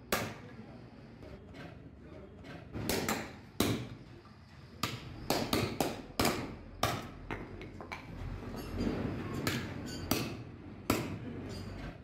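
Hand hammer striking a steel punch held in pliers against a truck brake shoe, knocking out the old lining's rivets: sharp metal-on-metal knocks at an uneven pace, each with a short ring.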